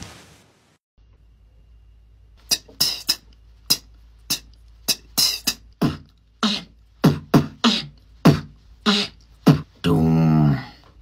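Beatboxer making bass drum and snare sounds with the mouth into a handheld microphone: a run of short, sharp hits beginning about two seconds in. Near the end it switches to a sustained, pitched, buzzing beatbox bass.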